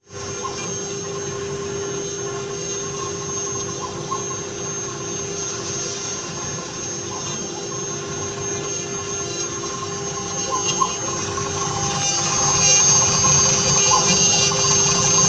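Eight-spindle CNC router carving wood: the spindle motors run with a steady tone over the noise of the bits cutting. The sound grows louder about twelve seconds in.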